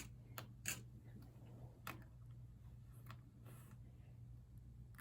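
A handful of faint, irregular small clicks of paperclips being handled and hooked together, over a low steady hum.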